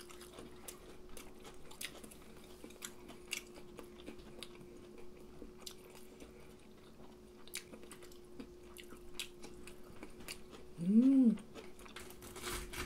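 Close-up eating sounds: quiet chewing and crunching of fried cutlet and rice, with scattered small clicks of chopsticks over a steady faint hum. About eleven seconds in a short hummed "mm" rises and falls, and a brief louder burst of noise comes just before the end.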